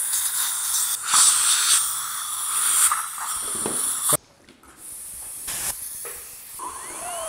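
Dental suction hose hissing at the patient's mouth. The hiss cuts off suddenly about four seconds in and comes back quieter. Near the end a high dental handpiece whine rises and falls.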